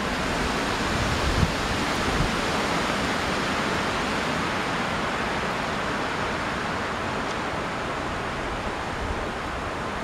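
Wind rushing through the trees: a steady, even hiss that swells slightly and eases off.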